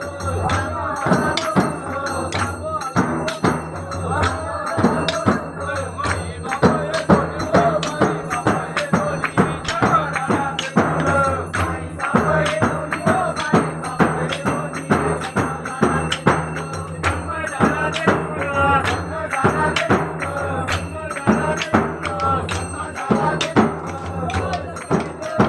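Konkani Shimga folk music: singing over a steady drum beat with jingling tambourine-like percussion and a sustained low drone.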